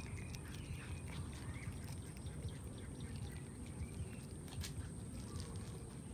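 A cat chewing raw fish, small irregular clicks of its mouth and teeth on the flesh, over a steady low rumble and a thin high-pitched whine.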